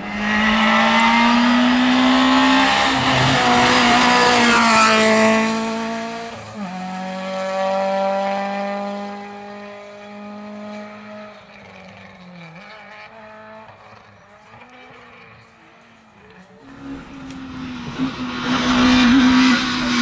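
A Citroën hatchback rally car's engine at high revs passing close by. The revs drop and pick up again around six seconds in, then climb as the car pulls away and fades. Near the end a second rally car, a Fiat Punto, comes in loud at high revs.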